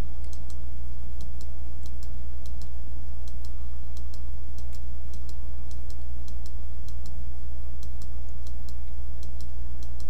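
Computer mouse clicking repeatedly, a few sharp clicks a second, over a loud steady low hum.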